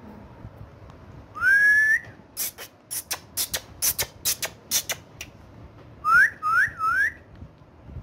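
Indian ringneck parrot whistling: one rising whistle that levels off, then a run of sharp clicks, then three quick rising whistles near the end.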